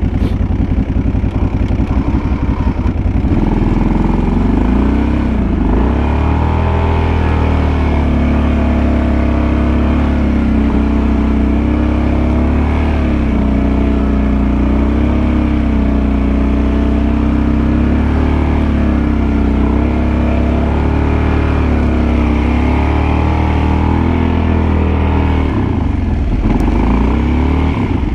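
Kawasaki Brute Force 750 ATV's V-twin engine, idling at first, then revving up about three seconds in and running at a steady, slightly wavering speed under load while plowing snow, dropping back to idle near the end.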